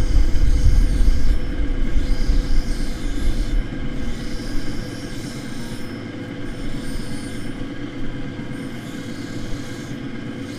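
Diamond wheel of a cabochon grinding machine running with a steady motor hum while a fused dichroic glass cabochon on a dop stick is ground against its wet edge. The grinding noise is heavier for the first four seconds or so, then lighter.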